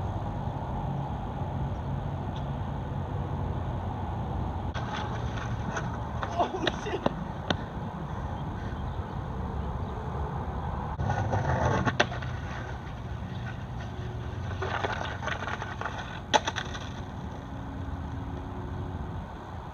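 Skateboard on a concrete ledge and ramp: three spells of scraping and wheel roll, each broken by sharp wooden clacks of the board. The loudest clack comes about twelve seconds in, ending a longer scrape. A steady low hum runs underneath.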